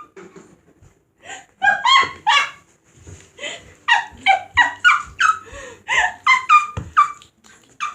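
A small dog yipping and whining: a rapid run of short, high calls, each falling in pitch, coming in three or four bursts.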